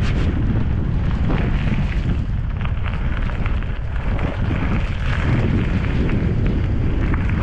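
Heavy wind rumble on the microphone of a downhill mountain bike descending a trail, with frequent short rattles and knocks from the bike over rough ground.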